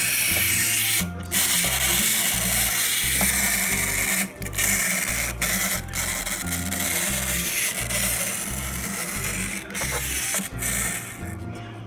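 Background music: a track with a bass line of short held notes stepping from one pitch to the next under a bright, hissy upper layer. It breaks off briefly every second or two.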